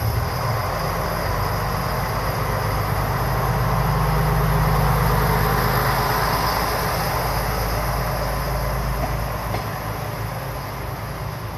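KiHa 100 series diesel railcar pulling away from the platform: a steady low engine drone over broad rolling noise. It grows to its loudest about halfway through, then slowly eases.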